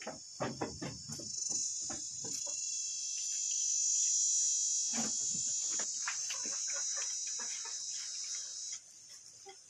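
An insect's high, steady buzzing trill, swelling in the middle and cutting off suddenly near the end, over scattered clicks and rustles.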